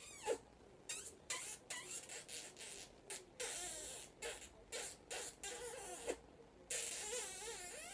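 A grey parrot and a person kissing mouth to beak: a rapid string of wet smacks and clicks mixed with short, warbling squeaks.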